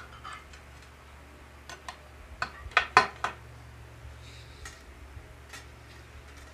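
Metal rods and short copper pipe handles clinking and knocking against each other and the table top as they are picked up and moved, a run of sharp clicks with the two loudest close together about three seconds in, then a few fainter ticks.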